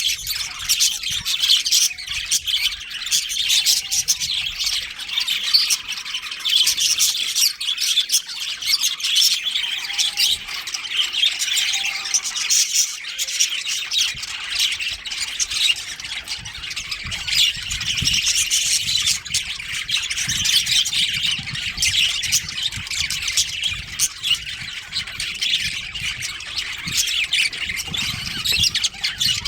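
A colony of budgerigars chattering and chirping, many birds calling over one another in a dense, continuous stream of short high calls.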